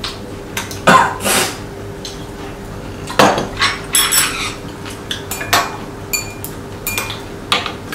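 Metal chopsticks and spoons clinking and scraping against ceramic bowls and plates at a meal: scattered sharp clicks and short ringing chinks, with louder scrapes about a second in and again after three seconds.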